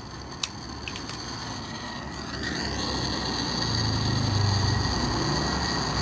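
Handheld gas torch: a click about half a second in, then the flame's hiss builds from about two seconds and runs steadily louder as it heats the Zippo hinge to melt the solder.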